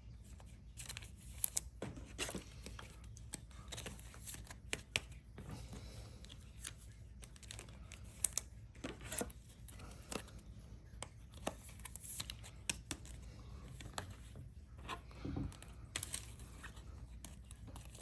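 Trading cards and foil pack wrappers being handled: irregular crinkling, rustling and light clicks as cards are shuffled and set down.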